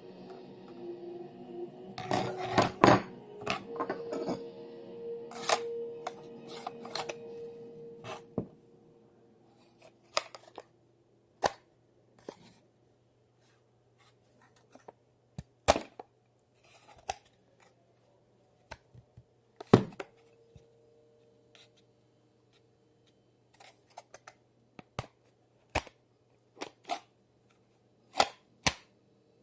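Sharp clicks and taps from a karambit claw knife and its hard sheath being handled, about a dozen scattered through with gaps of quiet between them. Faint music plays under the first several seconds.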